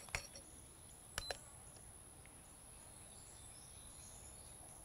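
A few faint mechanical clicks, the sharpest pair about a second in, as a digital trigger-pull gauge draws back the EAA Windicator revolver's single-action trigger until it breaks. Otherwise near silence.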